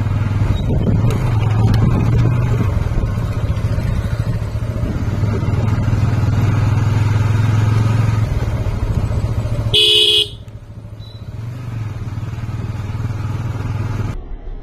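A motorcycle engine runs steadily under way, heard from the rider's seat. About ten seconds in there is a short, loud horn beep, and after it the engine runs quieter.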